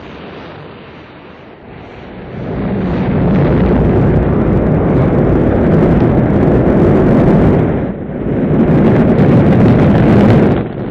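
Rocket launch roar, a sound effect: a loud, deep rumbling noise that swells about two seconds in and stays loud, dipping briefly twice near the end.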